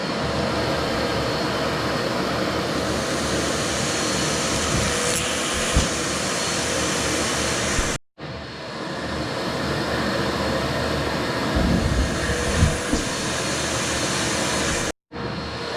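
Vacuum cleaner running steadily with a loud, even rush of air. A few low thumps come about six seconds in and again around twelve seconds, as clothing is drawn into it. The sound cuts out abruptly for an instant twice.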